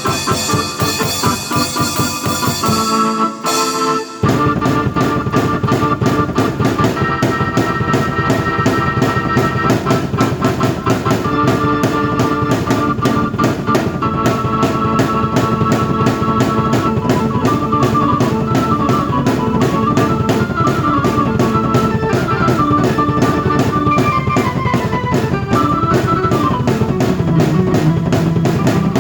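Drum kit and keyboard played together at the same time, a full song with a steady beat under a keyboard melody. About three seconds in the music breaks off for a moment, then the drums come back in with the full beat.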